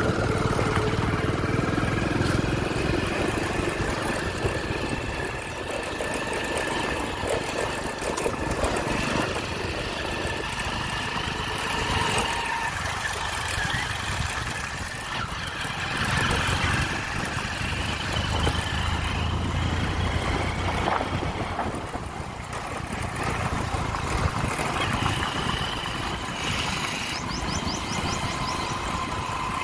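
Motorcycle engine running steadily while being ridden, its rumble rising and falling slightly with the throttle.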